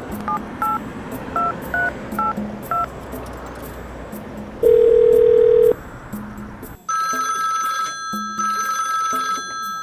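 Touch-tone telephone keypad dialing, about eight short beeps in quick succession, then a single steady tone of about a second, then from about seven seconds in a telephone ringing in repeated bursts. Faint music plays underneath.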